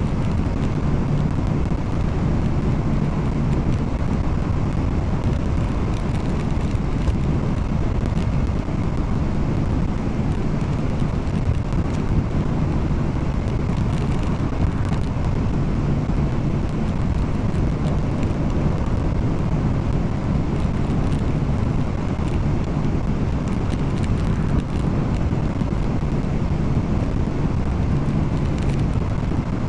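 Car cruising at highway speed, heard from inside the cabin: a steady low drone of engine and tyre road noise.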